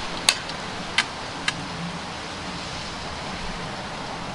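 Three sharp clicks in about a second and a half, the first the loudest, from the cocking and loading action of a Kral Puncher NP-02 .177 air rifle as it is readied for a shot, over a steady background rush.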